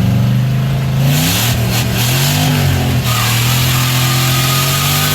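Turbocharged car engine pulling hard under acceleration. Its pitch climbs, dips and rises again, then holds a steady drone, over a loud rushing noise.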